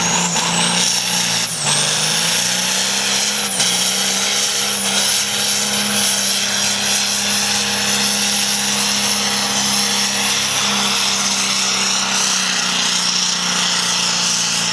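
Diesel pulling tractor's engine running hard at high revs under full load as it drags a weight-transfer sled. The revs climb over the first couple of seconds, dipping briefly twice, then hold steady, with a high whine that rises and then stays level.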